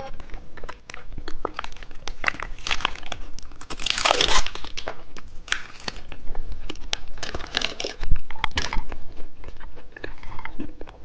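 Close-miked candy handling and eating: a plastic wrapper crinkling and tearing, with sharp clicks and crunching bites. The loudest crinkle comes about four seconds in.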